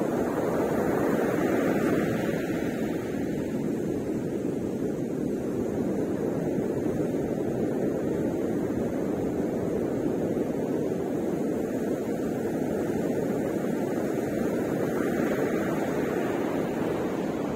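Steady roar of ocean surf breaking on the beach, mixed with wind rumbling on the microphone, swelling slightly a couple of times.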